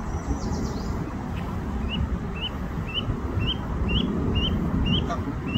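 Canada goose gosling peeping over and over, short upward-inflected peeps about two a second, starting about two seconds in. Under it a steady low rumble of road traffic.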